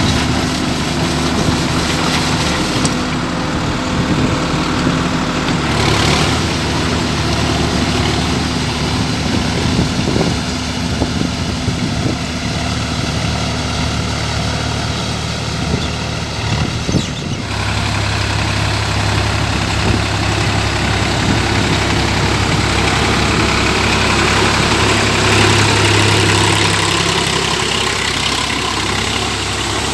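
Sonalika tractor's diesel engine running steadily while ploughing. About halfway through, its deep low note becomes stronger and stays that way.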